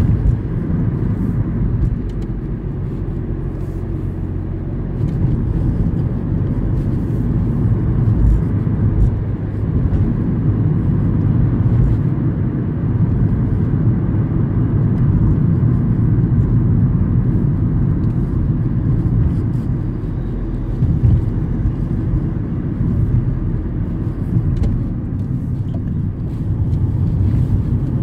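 Volkswagen car heard from inside the cabin while driving: a steady low rumble of engine and road noise that swells and eases a little as the car's speed changes.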